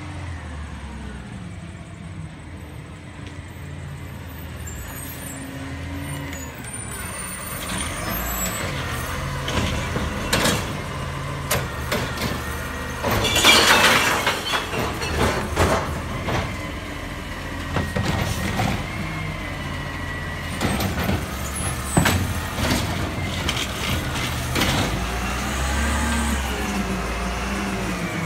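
Bridgeport split-body automated side-loader garbage truck driving up and slowing to the curb, its diesel engine running. There is a loud hiss of air brakes about halfway through.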